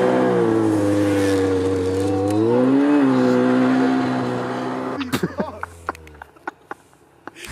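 Polaris snowmobile engine running under throttle through deep snow, its pitch wavering and swelling briefly about three seconds in, then fading away after about five seconds. A few sharp clicks follow in the quieter stretch.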